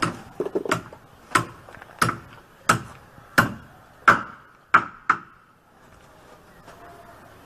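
A regular series of sharp knocks, about three every two seconds, with a quick cluster at the start, stopping about five seconds in.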